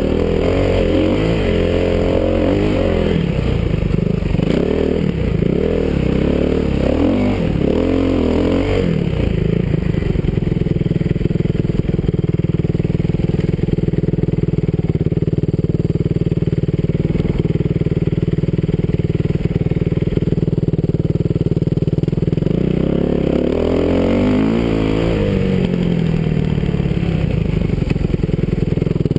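Kawasaki KX450F motocross bike's single-cylinder four-stroke engine being ridden. It revs up and down for the first several seconds, holds a steady pitch for about fourteen seconds, then rises and falls again near the end.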